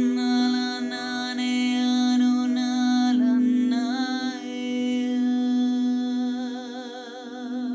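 Wordless humming or toning, changing note several times and wavering in a slow vibrato in the second half, over the steady sustained ringing of crystal singing bowls.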